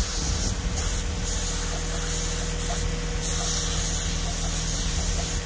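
Paint spray gun hissing in several short bursts, with the steady low hum of an engine or motor running underneath.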